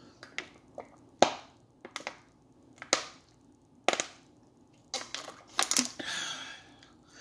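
Drinking water from a thin plastic water bottle. The plastic gives sharp crackles and clicks about once a second, bunching into a quick cluster near the end.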